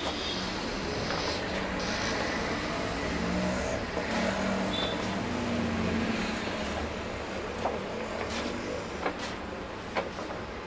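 Thick pages of a wallpaper sample book being turned by hand, with a few sharp slaps as pages land in the second half, over a steady low background rumble.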